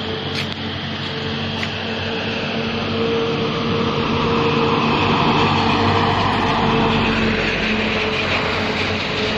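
A motor vehicle's engine running steadily, with road noise swelling for a few seconds as it passes along the street.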